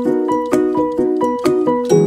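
Background music: a quick, even run of pitched notes, about four a second.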